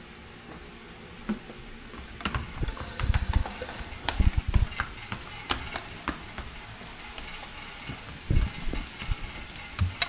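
Steady hiss of rain with irregular sharp taps and clicks, and a few dull thumps, heaviest about three to four and a half seconds in and again near eight and a half seconds.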